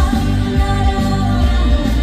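Loud amplified pop music with a heavy bass beat and a singing voice.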